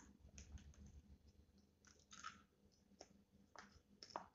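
Faint chewing of crispy fried chicken wing, heard as scattered small crunches and mouth clicks.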